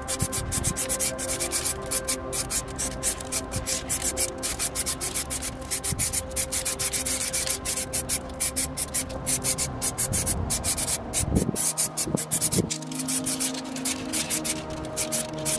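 Aerosol spray paint cans being worked over a canvas: a fast, irregular run of short hissing, rattling strokes, over light ambient music with steady held tones.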